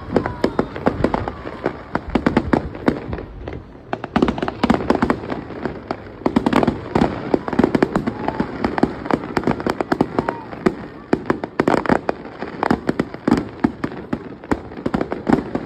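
Fireworks display: a rapid, continuous barrage of aerial shell bangs and crackling, easing briefly about three seconds in before picking up again.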